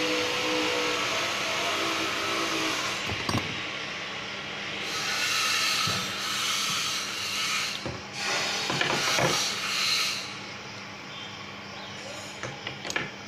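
High-pressure washer spraying water: a steady hiss, then several louder surges of spray over about five seconds, dying down to a quieter hiss with a few sharp clicks near the end.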